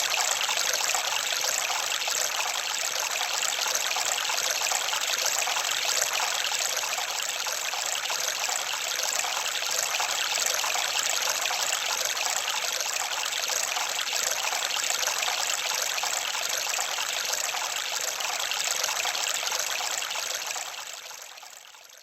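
Steady trickling of running water, like a small stream, fading out near the end.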